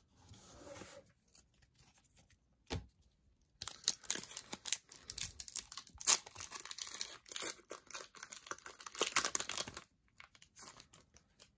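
Foil Pokémon booster pack being torn open and its wrapper crinkled: a dense, crackly run of tearing and crinkling that begins a few seconds in, lasts about six seconds, then stops abruptly.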